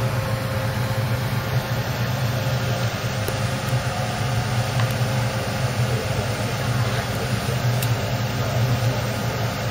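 A steady low engine hum, running at idle without change.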